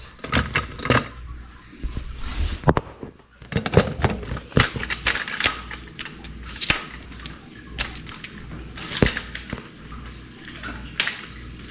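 Irregular sharp clicks and knocks from a lightweight aluminium camera tripod being handled and adjusted, its plastic leg clamps and centre column clattering close to the microphone.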